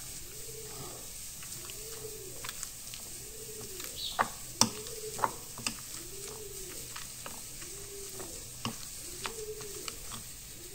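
Metal potato masher mashing boiled pumpkin on a ceramic plate: soft squashing with scattered sharp clicks as the masher meets the plate, the loudest a little after four seconds in. Behind it, a bird calls with a low note that rises and falls about once a second.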